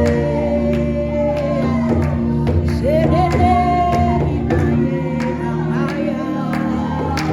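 Gospel worship music: voices singing over sustained instruments with regular percussion hits.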